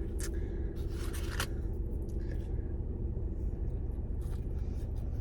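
Eating sounds: a few short crunching, scraping bites and chews in the first second and a half, over a steady low hum.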